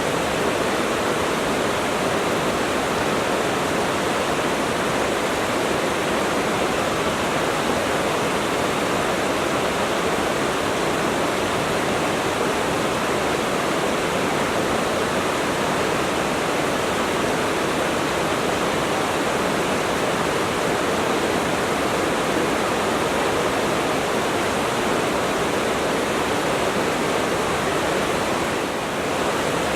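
Water flowing steadily in a stream, a continuous rushing sound with a slight dip in level near the end.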